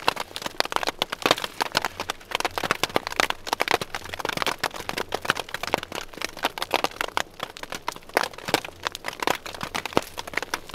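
Large hailstones hitting a tarp shelter overhead: a dense, irregular clatter of sharp taps.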